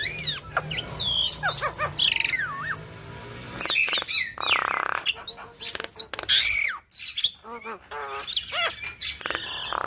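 Javan myna (jalak kebo) singing: a rapid, varied string of whistles sliding up and down, short clicks and harsh squawks, with a rasping buzz about halfway through.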